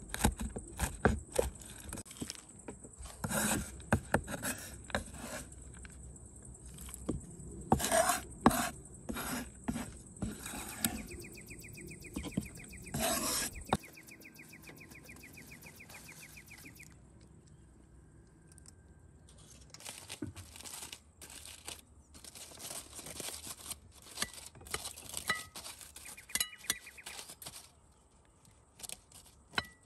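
Kitchen utensils knocking and scraping against dishes and bowls in irregular clicks and taps, quieter for a few seconds near the middle. A faint buzzing tone runs for several seconds partway through.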